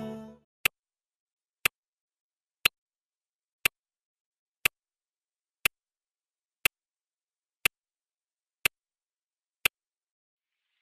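Ticking sound effect in a dance mix: a sharp tick once a second, ten in all, over dead silence, after the music fades out at the start.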